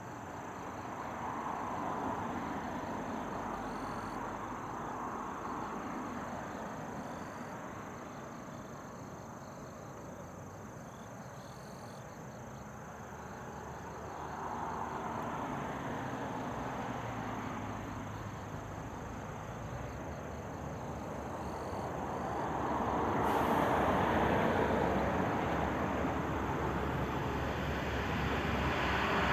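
A 115 series electric multiple unit approaching on the rails, its running noise swelling and fading a few times and growing steadily louder as it nears. Faint insect chirping goes on behind it.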